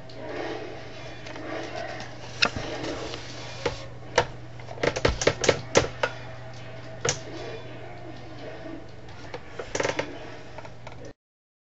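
Playing cards being handled, giving sharp clicks and snaps: single ones here and there, a quick run of them about five to six seconds in and a few more near the end. Under them runs a steady low electrical hum, and the sound cuts off shortly before the end.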